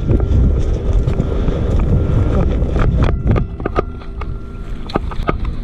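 Wind buffeting the microphone with scattered crunching and rustling from footsteps in dry grass; the wind rumble eases about three and a half seconds in.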